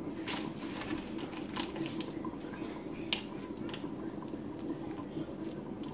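Hands breaking apart a dry smoked fish, with scattered small crackles and snaps of flesh and bone and one sharper snap about three seconds in, over a steady low background hum.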